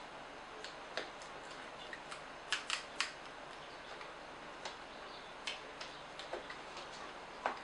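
Irregular small clicks and taps of fingers handling the opened plastic housing, wiring and circuit board of a Nikon SB900 flash, with three sharper clicks close together about two and a half to three seconds in, over a faint steady hiss.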